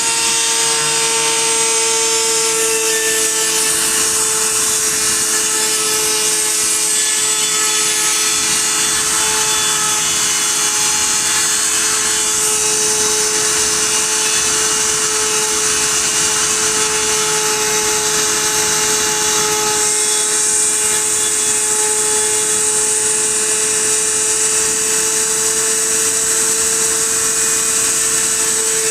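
Small CNC machine's high-speed spindle running steadily while milling a printed circuit board: a constant motor whine over a high-pitched hiss.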